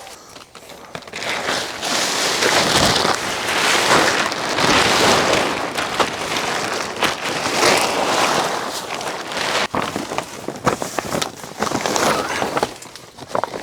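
Plastic tarps rustling and crinkling loudly as they are pulled down from a shelter, a dense, rising and falling noise with a few sharp snaps.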